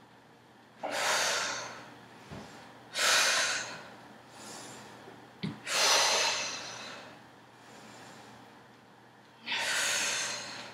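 A woman breathing hard from exertion while doing fast bodyweight exercise. There are four loud, hissing breaths a couple of seconds apart, with fainter breaths between them, and a couple of soft thumps of sneakers on a wooden floor.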